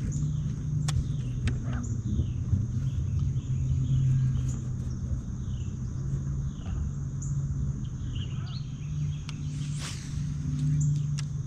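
Steady low hum of a bow-mounted electric trolling motor running, with birds chirping repeatedly in the background.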